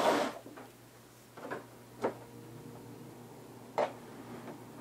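Handling noises from laptop repair on a tabletop: a short scrape as the thin replacement LCD panel is put down, then three sharp plastic knocks about one and a half, two and nearly four seconds in as the netbook is handled.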